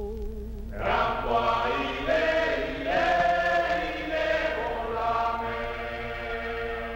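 Music with a choir-like sound. A held note with a slow wobble fades out, then about a second in a loud chord of voices swells up and moves through several chord changes.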